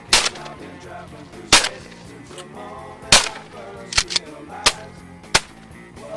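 Shotgun shots: three loud blasts about a second and a half apart, then three fainter shots in quicker succession.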